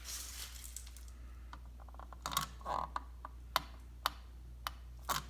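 Sticking test button of a Family Guard 83R smoke alarm being pressed again and again: about seven sharp plastic clicks at uneven intervals. The alarm does not sound.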